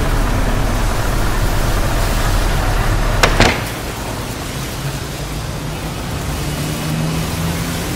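Steady hiss of rain over a low rumble. About three seconds in a brief sharp sound cuts across, and the rumble stops soon after.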